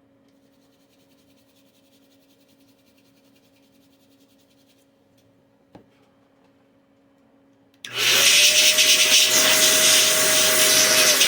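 Near silence with one faint click, then about eight seconds in a loud blast of compressed air hissing into a laptop cooling fan. The fan's whine rises quickly as the air spins it and then holds steady.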